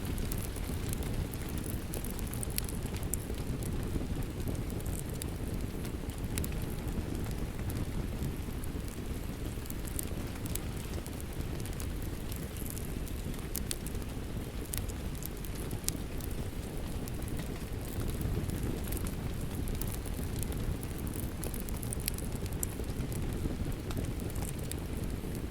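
Steady rain with a crackling wood fire: an even, low-weighted hiss and rumble, with scattered sharp crackles and pops from the fire.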